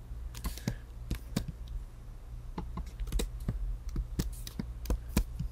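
Computer keyboard keystrokes, a dozen or so light, irregular clicks, as a line of HTML code is duplicated, over a steady low hum.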